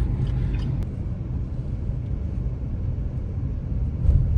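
Steady low rumble of a moving car heard from inside its cabin: engine and road noise. It grows louder about four seconds in.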